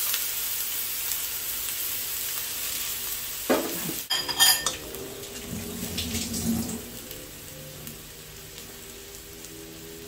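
Rice vermicelli and water mimosa sizzling in a hot metal wok as they are stirred and tossed. A spatula scrapes and clatters against the wok a few times about three and a half to four and a half seconds in. The sizzle dies down to a faint hiss in the last few seconds.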